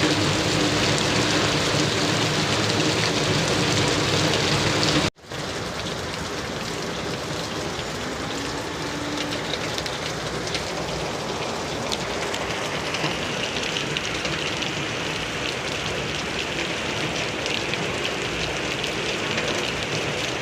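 Heavy rain falling steadily, with the patter of many drops. The sound cuts out for an instant about five seconds in; before that it is louder, with a low hum underneath.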